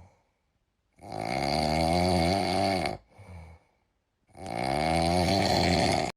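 Snoring, two long snores of about two seconds each, a little over a second apart, each followed by a short, softer sound.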